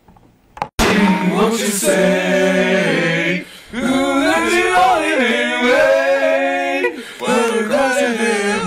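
A man's voice singing unaccompanied, with long held notes; it starts abruptly about a second in, after near silence.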